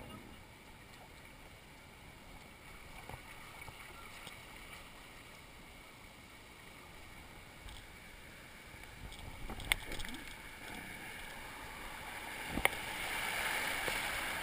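Water rushing and lapping around a floating inner tube, growing louder in the second half as the current picks up, with two sharp knocks along the way.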